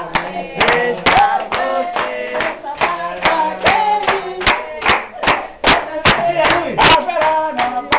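A group of people singing together while clapping their hands in time, about three claps a second.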